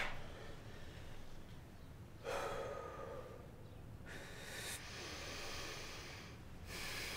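A man breathing hard after gasping awake: three long breaths, about a second and a half to two and a half seconds apart, over a faint hiss.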